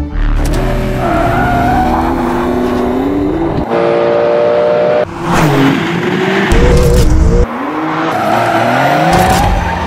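Porsche 911 (992) flat-six engine revving and accelerating, its pitch climbing and then dropping several times as it shifts up through the gears.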